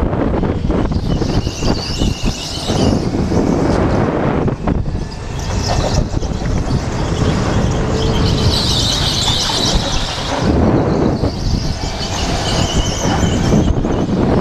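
Go-kart at racing speed heard from the driver's helmet: a steady rumble of wind and kart vibration, with the tyres squealing on smooth concrete through the corners three times, loudest about eight to ten seconds in.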